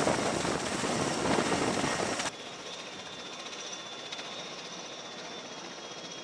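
V-22 Osprey tiltrotor running on the flight deck with its rotors turning: a loud, dense rush of engine and rotor noise. About two seconds in it cuts off abruptly to a much quieter steady hiss with a faint high whine.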